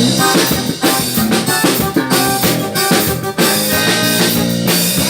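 Live band music during a sound check: a drum kit keeping a steady beat with bass drum and snare under sustained bass and instrument notes.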